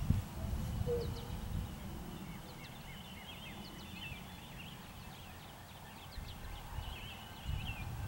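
Small birds chirping and twittering, many short high calls, over a low, uneven rumble.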